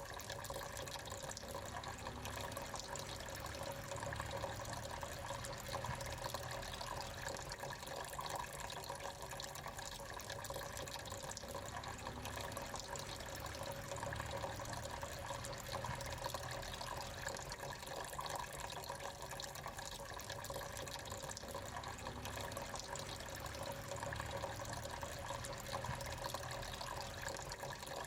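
Water trickling and splashing steadily in a small pump-fed tabletop fountain.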